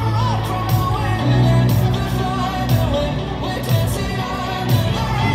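Recorded song with a singing voice over a steady beat of about two beats a second, and a sustained bass line underneath.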